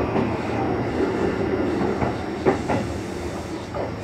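Sanyo 6000 series electric train running, heard from inside the car: a steady rumble of wheels on rail with a few sharp clacks from the wheels over the track, one at the start, a pair about two and a half seconds in, and one near the end.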